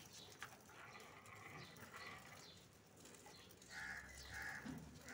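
Faint bird chirps repeating throughout, with two short, louder animal calls close together about four seconds in.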